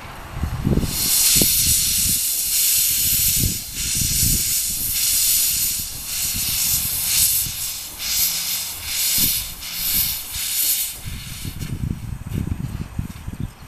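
Kerr Stuart 0-6-2T narrow-gauge steam tank locomotive moving off slowly with its cylinder drain cocks open, steam hissing loudly out at the cylinders and pulsing with each piston stroke. The hiss dies away near the end.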